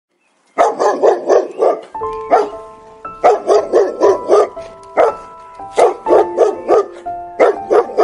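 A dog barking in quick runs of five or six barks, with single barks between the runs, over background music holding steady notes.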